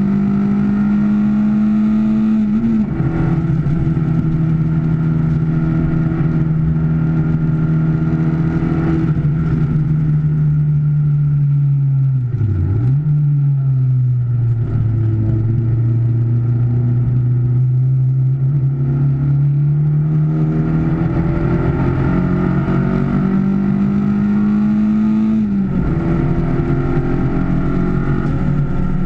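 Car engine heard from inside the cabin while lapping a circuit: it shifts up about three seconds in, its revs sink while slowing for a corner, with a short dip and recovery about halfway, then climb steadily under acceleration to another upshift near the end.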